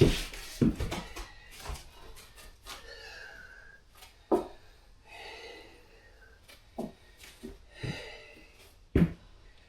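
A heavy wooden floor panel being handled and set back down onto the floor joists: about six scattered knocks and thuds, the sharpest near the end, with scraping and a man's heavy breathing in between.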